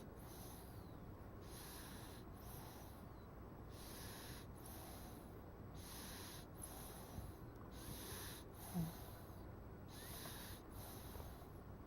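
Baby snoring in its sleep: soft, hissy snorting breaths about every two seconds, with one short low grunt about nine seconds in.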